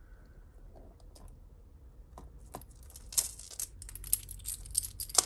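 Gold-tone metal necklace with set stones clinking and jingling as it is handled and pulled free of other jewellery: a few faint clicks at first, then a busy run of small metallic clinks from about three seconds in, with a sharp click near the end.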